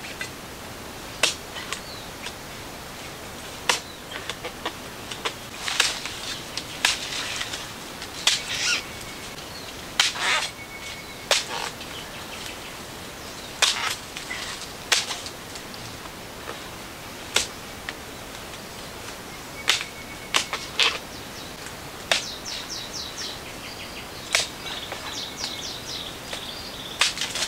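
Machete chopping into the fibrous trunk of a cây đao palm. Sharp, irregular chops come every second or two, a few of them with a brief ring.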